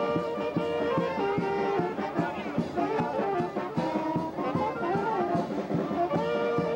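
Brass band music: horns playing held and moving notes over a steady drum beat.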